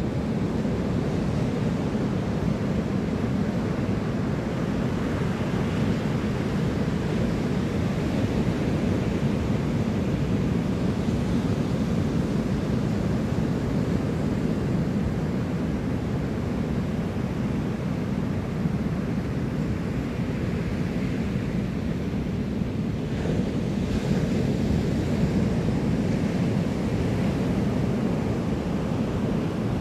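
Steady wash of ocean surf breaking on the shore, with wind rumbling on the microphone.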